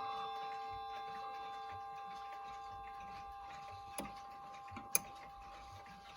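Chime tones of a Hermle 341020 clock movement slowly fading out while the movement ticks faintly, with a few sharper clicks from the works near the end.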